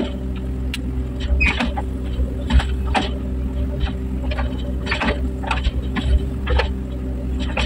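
Excavator at work: its diesel engine hums steadily while its working parts give frequent sharp metal clanks and short squeaks.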